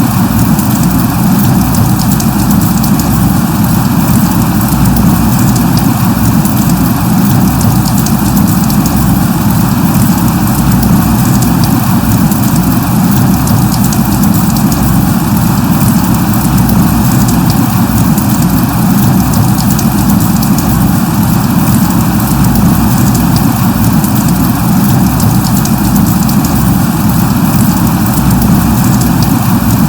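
Steady light rain falling: an even, unbroken hiss with a strong low rumble and no distinct drops standing out.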